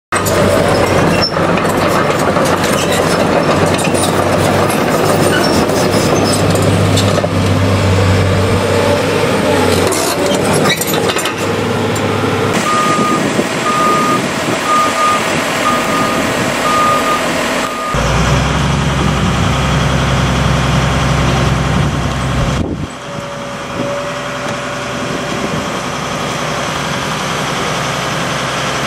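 A heavy vehicle's diesel engine runs with changing load. Midway, a back-up alarm beeps steadily, roughly once a second, for about five seconds.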